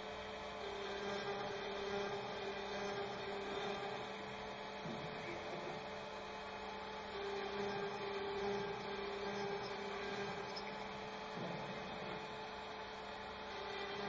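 ShopBot CNC router's spindle running with a 1/8 inch end mill cutting out a part, a steady hum with a tone that swells and fades every few seconds as the cut goes on.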